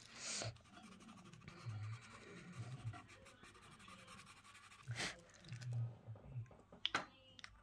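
Pastel pencil scratching faintly on toothy paper in short shading strokes, with a few louder strokes standing out.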